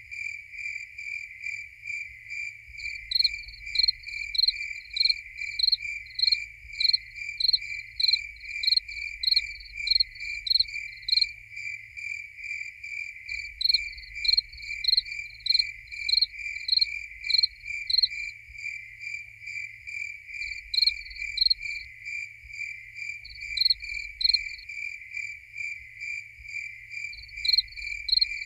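Crickets chirping. One keeps up a steady, even chirp of about three pulses a second, while a higher-pitched, louder cricket chirps in runs that start and stop several times.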